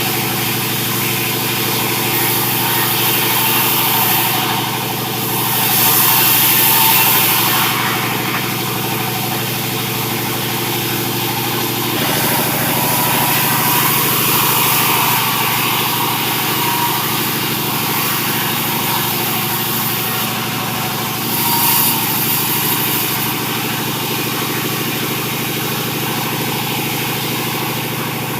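Sawmill running steadily on its engine, with the saw cutting sengon timber. A louder high hissing rises twice, about five seconds in and again around twenty-one seconds.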